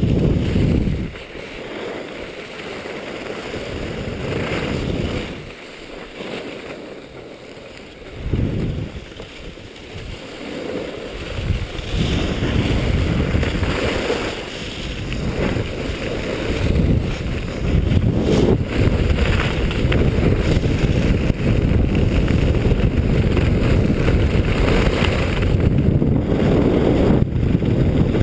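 Wind rushing over an action camera's microphone as a skier goes downhill, with the hiss and scrape of skis on packed snow. It comes in uneven gusts at first, then turns steady and louder after about twelve seconds as the speed builds.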